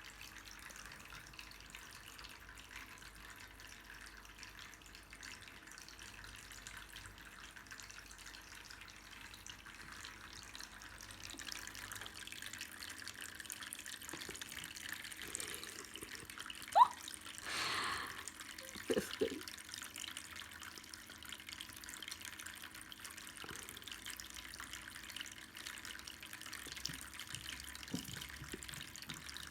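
Cat water fountain running, with a steady trickle of falling water. A bit past halfway there is a brief sharp sound, then a short noisy rush and two small blips.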